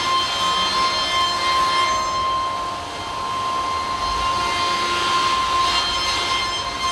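High-speed milling spindle of a 5-axis machining centre cutting aluminium at 21,000 rpm with a 15 mm depth of cut: a steady high whine over a noisy hiss. It dips briefly about three seconds in.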